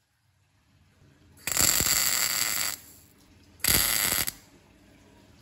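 MIG welder arc crackling in two short welds on a steel tube: the first starts about a second and a half in and lasts just over a second, the second, about half a second long, follows about a second later.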